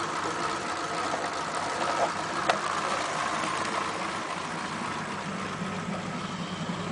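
A 1941 Ford pickup's flathead V8 idling steadily, heard near the exhaust. It runs smoothly with its flooding carburettor cured.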